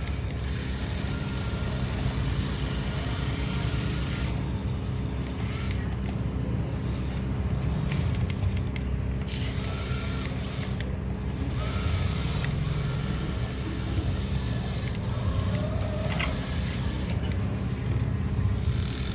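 Excavator engine running steadily with a low rumble while it digs and loads sand.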